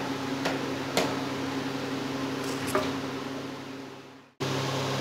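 Steady electrical hum of a kitchen appliance, with a few light clicks. It fades away to silence about four seconds in, then comes back abruptly.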